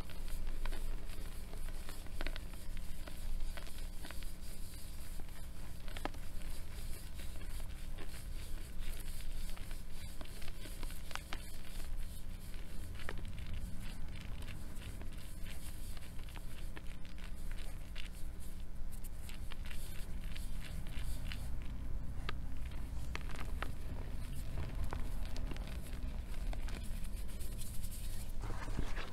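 Hands crushing and crumbling reformed gym chalk in a bowl of loose chalk powder: a continuous stream of small, soft crunches and crackles as the lumps break and the powder is squeezed and rubbed between the fingers.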